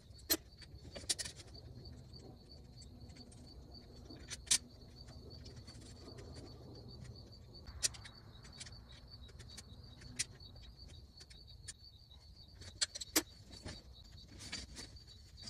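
Scattered sharp clanks and clicks from the metal frame of a Game Winner Climber 2.0 climbing treestand as it is handled and bolted together. Under them, a cricket chirps steadily in an even, pulsing trill.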